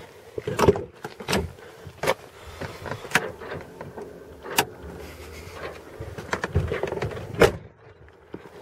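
Driver's door of a 1996 Chevrolet Silverado pickup being opened and shut, with a string of clicks and knocks from inside the cab as the dash controls are worked. The door shuts with the loudest knock near the end.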